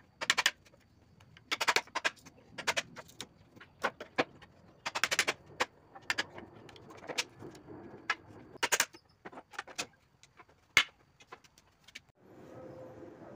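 A steel hammer striking a pry bar driven between the boards of a wooden pallet. The sharp metallic knocks come irregularly, often in quick clusters of several blows with pauses between. Near the end the knocking stops and steady background noise takes over.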